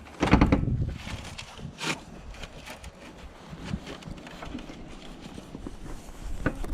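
Knocks and crunches from opening a snow-covered car hood by hand: a loud crunching burst near the start, a sharp knock about two seconds in, then scattered small clicks and taps.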